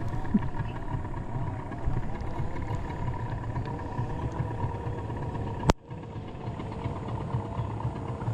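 Boat's outboard motor running steadily, its pitch wavering slightly, with a sharp click and a brief drop in sound about five and a half seconds in.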